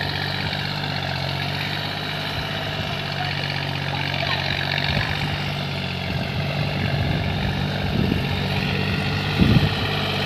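Deutz-Fahr Agrolux 50 tractor's diesel engine running steadily as it pulls a tiller through the soil, with a couple of brief low thumps near the end.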